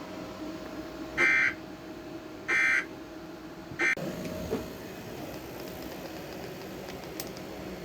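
Emergency Alert System end-of-message data bursts: three short, buzzy digital tones about a second and a quarter apart, signalling the end of the tornado warning broadcast. A faint steady hum lies underneath.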